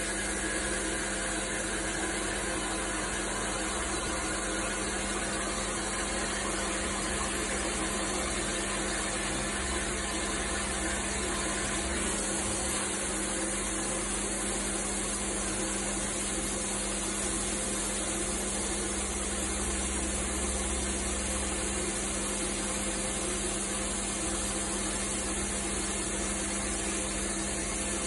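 CNC machining center running a cut on metal parts under flood coolant: a steady hum with a constant high hiss that holds level throughout.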